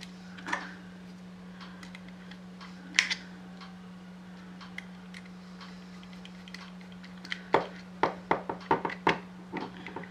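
Small clicks and taps of a screwdriver working screws into the side plate of a Crosman 357 CO2 pellet pistol: a few scattered clicks, then a quick run of clicks in the last couple of seconds, over a steady low hum.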